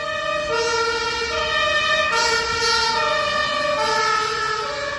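Fire truck siren sounding a two-tone hi-lo call, switching between a higher and a lower note about every three-quarters of a second, over a low rumble.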